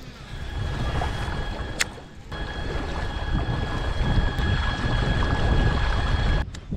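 Wind buffeting the microphone over water sounds from a kayak out on the lake, with a single sharp click just before two seconds in. Faint steady high tones run through the middle stretch.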